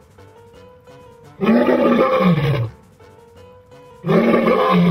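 Male lion roaring: two long roars, about a second and a half in and again near the end, each dropping in pitch as it ends. Quiet background music plays between them.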